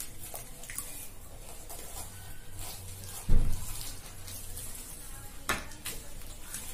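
Hand-eating sounds: fingers tearing puffed luchi and working food on plates, small crackles and clicks over a steady low hum. A dull thump about halfway through, and a sharper click a couple of seconds later.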